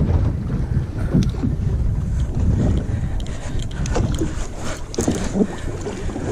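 Wind buffeting the microphone over water slapping against a boat hull, with a few short clicks and knocks scattered through it.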